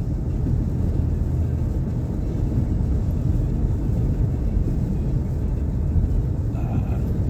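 Steady low road rumble of a Nissan Pathfinder on the move: tyre and engine noise heard from inside the cabin.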